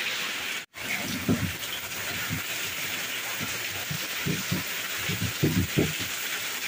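Heavy rain falling steadily, cutting out briefly just under a second in. From about a second in come irregular dull knocks and grinding of a stone pestle crushing bird's-eye chillies and garlic in a stone mortar (ulekan and cobek).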